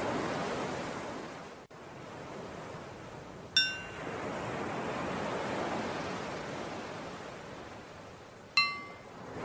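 Recorded ocean waves washing steadily, swelling and ebbing, with a bell struck twice about five seconds apart, a third of the way in and near the end, each ringing out briefly, the second lower in pitch than the first. The bell strikes mark the switch between breathing in and breathing out.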